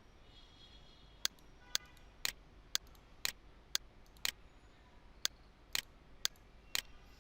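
A row of about a dozen sharp clicks, evenly spaced about two a second, starting about a second in.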